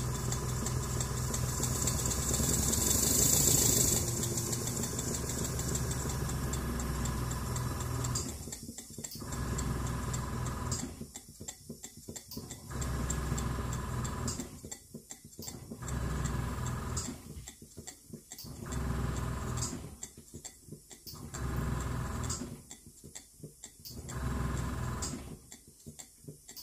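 Holzapfel CH110 twin-cylinder model marine steam engine running on compressed air from an airbrush compressor, with air hissing through it. It runs continuously for about eight seconds, then the sound comes and goes in regular surges about every two seconds.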